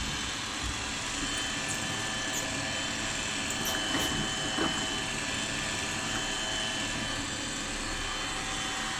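Tefal robot vacuum cleaner running, its motor and brushes making a steady hum with a thin high whine.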